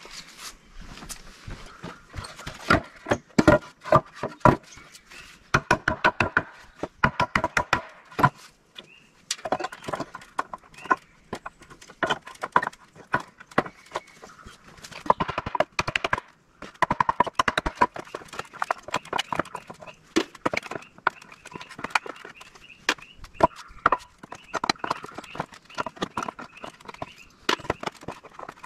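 Hammer blows on wood and nails, coming in runs of quick strikes with short pauses between, some hits ringing.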